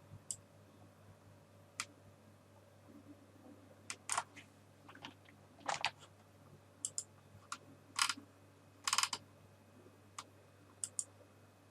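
Irregular computer mouse clicks and a few keyboard keystrokes, a dozen or so spread out with pauses between them, some coming as quick double clicks.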